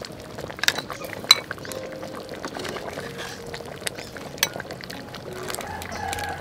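Catfish sour soup bubbling and sloshing in an aluminium pot as it is ladled into a ceramic bowl, with about three sharp clinks of the metal ladle against the pot and bowl.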